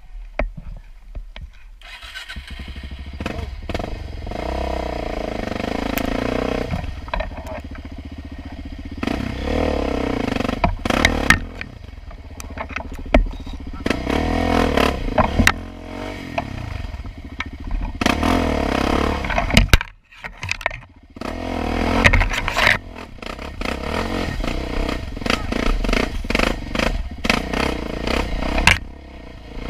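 Sport quad ATV with a Big Gun aftermarket exhaust running hard on the trail, the engine revving up and falling back again and again, mixed with sharp clattering and scraping knocks. About twenty seconds in the engine sound dips briefly before picking up again.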